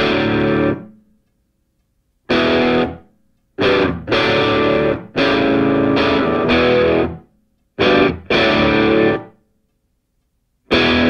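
Background music: distorted electric guitar chords played in abrupt stop-start stabs, about seven of them, with dead silence between.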